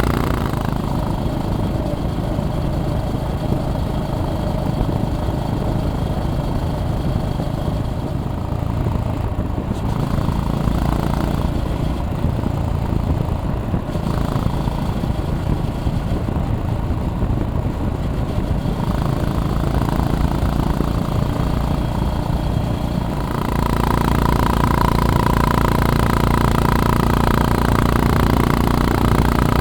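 A Honda GB350S's air-cooled single-cylinder engine running as the bike is ridden at an easy pace. The engine note swells a few times, then becomes louder and higher over the last six seconds.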